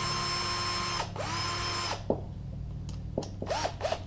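Cordless drill/driver driving the cord-clamp screws of a plug: a steady motor whine that stops about a second in, a second run of about a second, then several quick short spins near the end.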